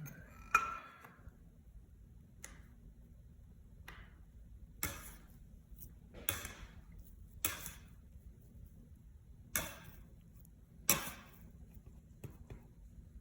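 Wet, sticky bread dough being worked by hand on a countertop: about eight irregular sharp slaps and thuds, one every second or two.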